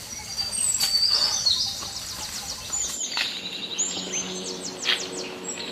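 Birds chirping and calling in quick high notes and short falling whistles, over low outdoor background noise that drops out abruptly about halfway.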